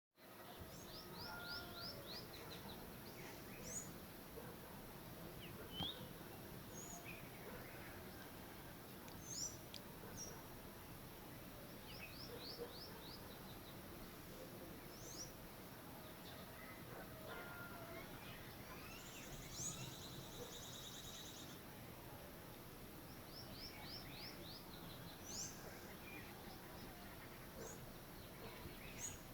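A wood-warbler singing: a quick run of about six falling high notes, repeated about every twelve seconds, with other birds chirping and a rapid buzzy trill about two-thirds of the way through.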